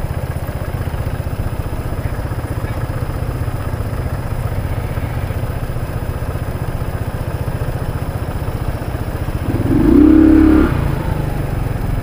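Yamaha YBR125G single-cylinder engine running steadily, heard from the rider's seat. About ten seconds in, a loud steady tone sounds for about a second over it.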